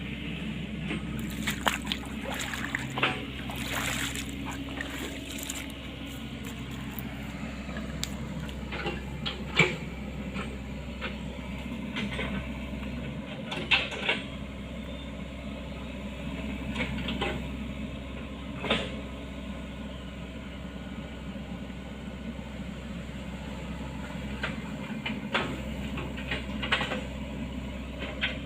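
Sany excavator's diesel engine running steadily, with sharp knocks and clanks every few seconds, the loudest about ten, fourteen and nineteen seconds in.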